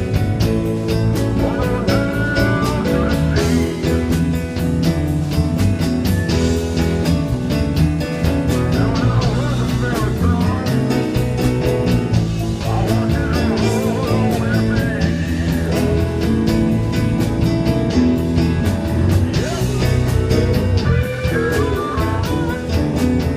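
Live band playing a slow blues in E: electric guitar with sliding, bent notes over a steady rhythm section.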